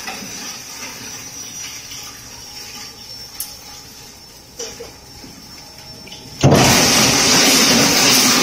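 Bone crusher machine running with a steady high whine and a couple of light knocks. About six seconds in, a sudden loud grinding rush starts and keeps on as bones fed into the hopper are crushed.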